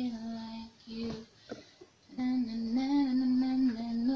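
A woman's voice singing a slow melody in long held notes, breaking off for about a second midway and then resuming.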